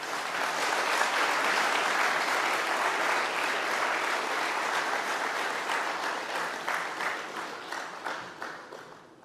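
Audience applauding: a full round of clapping that starts abruptly, holds steady, and fades away near the end.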